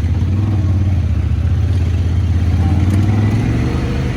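ATV engine running steadily under way, a low, even drone with slight wavers in pitch.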